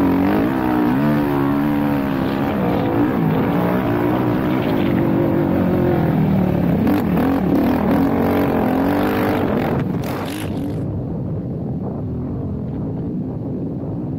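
Suzuki LTR 450 quad's single-cylinder four-stroke engine under hard riding, its pitch rising and falling repeatedly as the throttle is opened and closed. About ten seconds in, the sound turns duller and a little quieter.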